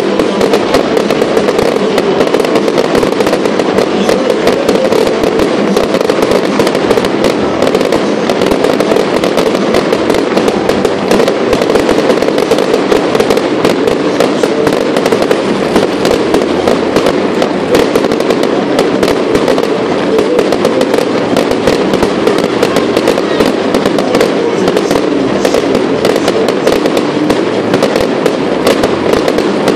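Fireworks display in a dense, continuous barrage: rapid crackles and bangs overlap with no break, loud throughout.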